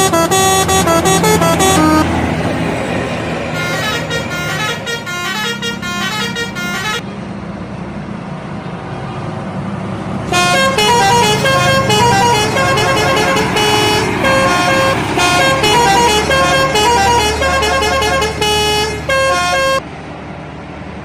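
Indonesian bus telolet horn playing quick melodic runs of stepped notes, loud at the start, softer a few seconds later, then loud again from about ten seconds in until it cuts off suddenly near the end. A bus engine's low running sounds underneath throughout.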